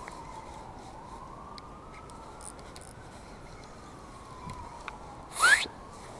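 An emergency-vehicle siren wailing slowly, its pitch rising and falling over a few seconds at a time. About five and a half seconds in, a short, loud sharp sound with a quick upward sweep in pitch breaks in over it.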